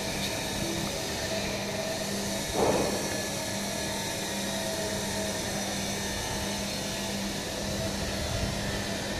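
A steady droning hum, with a brief louder sound about two and a half seconds in.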